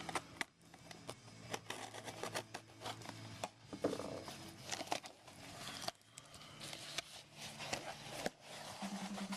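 Cardboard shipping box being opened and its packing handled: scattered clicks, scrapes and rustling of packaging.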